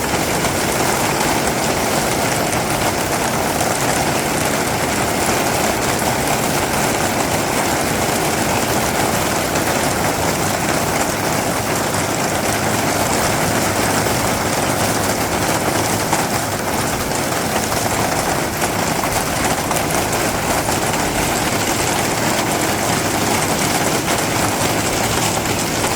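Gale-force storm wind with heavy rain, a steady loud rushing noise that does not let up.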